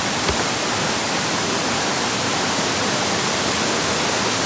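Steady rushing of falling and flowing water from a waterfall and stream, an even hiss with no breaks, with a faint click about a third of a second in.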